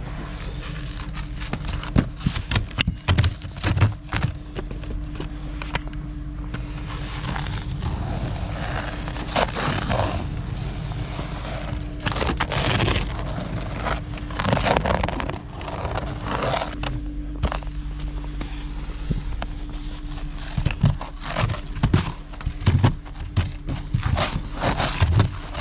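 Truck engine idling steadily while snow is brushed and scraped off the truck in repeated sweeps, with scattered knocks.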